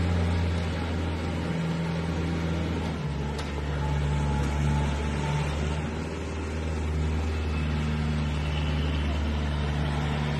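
Kubota MU4501 tractor's four-cylinder diesel engine running steadily under load while pulling a plough; its note drops about three seconds in.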